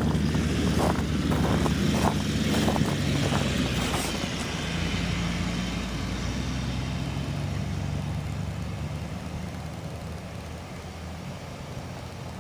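A motor vehicle's engine running steadily, slowly fading away over the second half, with a run of short crunches or knocks during the first four seconds.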